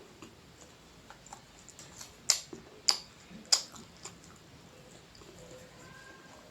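Close-miked eating sounds: faint scattered ticks and three sharp clicks about half a second apart near the middle.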